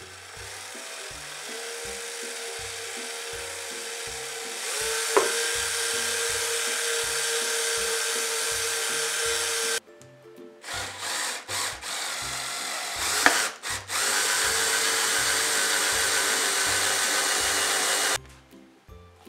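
Cordless drill boring into a wooden board. It makes one long run of about ten seconds that gets louder about halfway through, then several short bursts, then a second steady run that stops suddenly near the end. Background music with a steady beat plays underneath.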